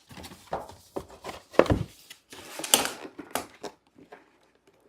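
Plastic toy pieces being handled: irregular clicks and knocks, with a thump about a second and a half in and a short rustle of packaging just after.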